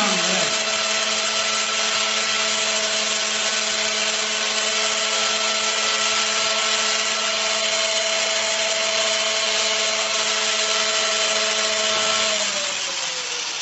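Corded electric angle grinder running at a steady pitch with a strong hiss as it is passed over a man's head to cut his hair. About twelve seconds in it is switched off and its pitch falls as it spins down.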